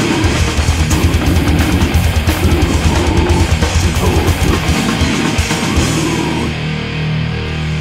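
Heavy metal song: distorted electric guitars over fast, dense drumming. About six and a half seconds in, the drumming stops and held guitar notes ring on.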